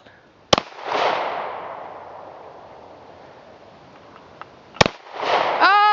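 Two pistol shots from a Caracal F handgun, about four seconds apart, the first trailing off in a long fading echo.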